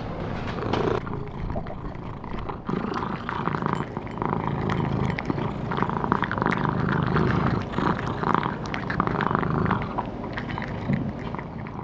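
A British Shorthair cat eating from a ceramic bowl: repeated chewing and crunching, with a steady low purr underneath.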